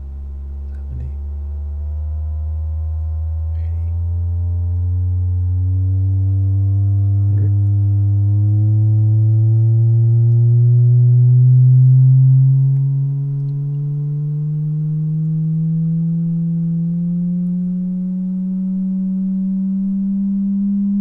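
Sine test tone played through a Bose SoundLink Micro Bluetooth speaker, stepping slowly upward in pitch from about 70 Hz to about 200 Hz with faint overtones: a low-frequency sweep of the speaker's bass response. It is loudest a little past halfway.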